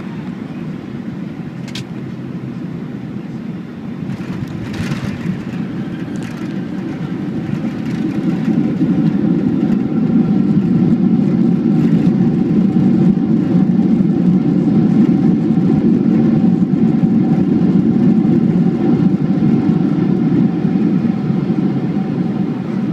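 Boeing 757 cabin noise during landing: a loud, steady rumble of jet engines and airflow that swells about eight seconds in and holds. A couple of brief knocks come in the first few seconds.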